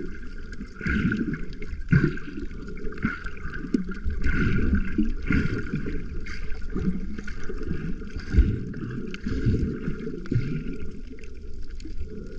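Muffled underwater sloshing and gurgling of water around a submerged camera, swelling and ebbing irregularly about once a second.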